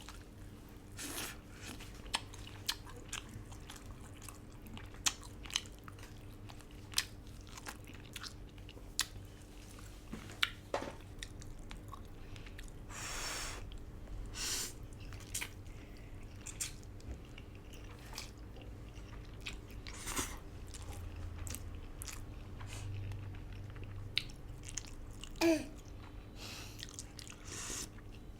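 Close-miked eating sounds of a person eating herbal braised duck noodle soup: chewing and biting, with scattered sharp clicks and taps and one longer noisy stretch about thirteen seconds in.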